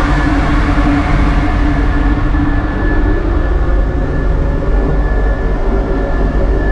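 Wall-mounted hand dryer running, a loud steady rush of blown air with a faint high motor whine.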